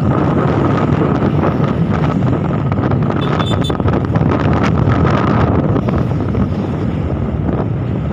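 Wind rushing over the microphone on a moving motorbike, with the steady running of scooter engines underneath.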